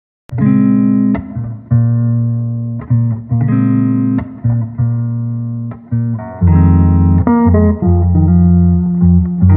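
Background guitar music: after a moment of silence, plucked chords come in, struck again every half second or so and turning fuller with a deeper bass about two-thirds of the way through.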